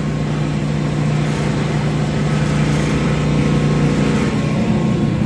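RMF MB2000 stainless steel paddle blender running empty, its electric drive motors turning the paddle shafts with a steady hum and a strong low tone. The shaft bearings are spinning smoothly, with no rubbing of the paddles in the trough.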